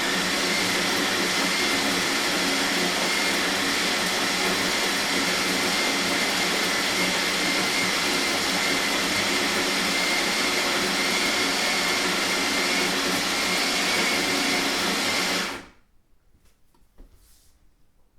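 Electric coffee grinder grinding beans, running steadily for about fifteen seconds and then stopping.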